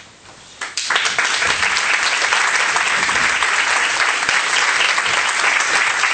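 Audience applause starts about a second in, as the last of the music dies away, and goes on steadily.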